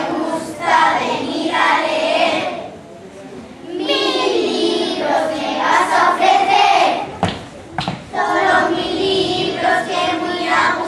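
A group of children singing together in chorus, in phrases with a short pause partway through, and two sharp knocks near the middle.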